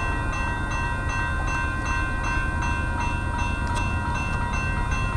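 Railroad crossing bell ringing in rapid, even strokes over the low rumble of an approaching Union Pacific coal train.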